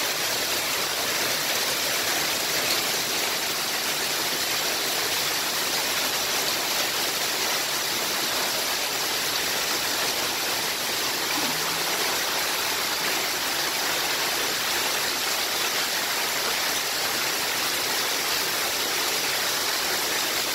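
Heavy hailstorm: hail and rain pelting down together in a dense, steady hiss that never lets up.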